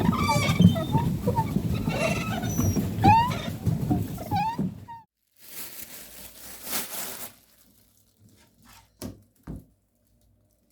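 Animals calling over a dense background din, with many short chirping calls, stopping abruptly about five seconds in. Then comes a brief swishing noise and two light knocks near the end.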